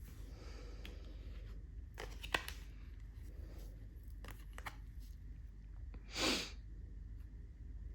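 Tarot cards being handled on a table: a few soft clicks and rustles, then one short, louder swish about six seconds in.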